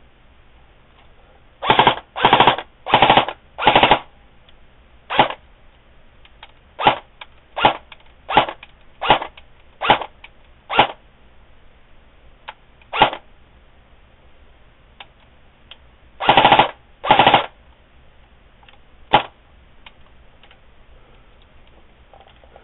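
Airsoft electric gun (a hybrid JG/CYMA AK-47 AEG) test-firing: its gearbox cycles in four quick short bursts about two seconds in, then a string of single shots and two more short bursts. It is the first test fire of the freshly built gun, and it is working.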